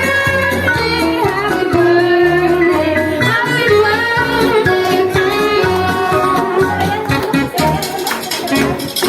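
Music: a song with a singing voice over plucked guitar and a repeating bass line.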